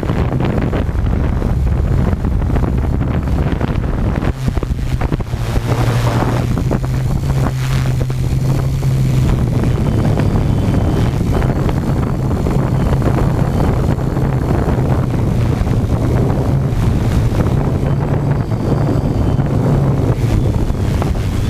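Tarot 650 quadcopter's motors and propellers humming steadily in flight, their low drone shifting slightly in pitch as the motors work against the wind. Heavy wind buffeting on the microphone runs under the hum.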